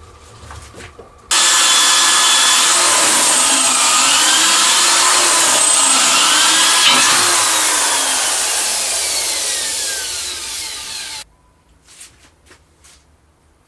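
Power tool running under load on the new exhaust pipe for about ten seconds, its whine sliding up and down as it works the metal. It starts abruptly, eases slightly toward the end and cuts off suddenly.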